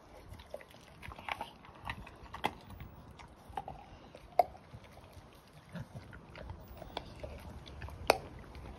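Staffordshire bull terrier puppy chewing and gnawing a raw pork trotter: irregular crunching and clicks of teeth on bone and skin, with a sharper crack about halfway and another near the end.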